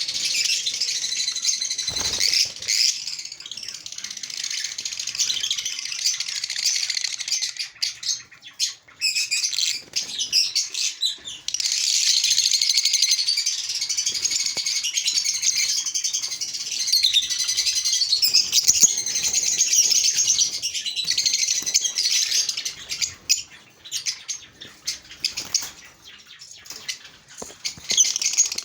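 A flock of small aviary birds chirping and twittering continuously, many calls overlapping, with wing flutters and small clicks among them.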